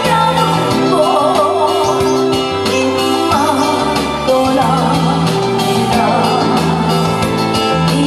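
A woman singing into a microphone with a wavering vibrato, over loud amplified backing music.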